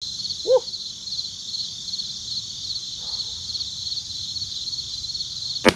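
Chorus of insects chirping steadily in a high, pulsing trill of about three pulses a second. A short rising-and-falling animal call sounds once about half a second in, and a sharp snap comes near the end.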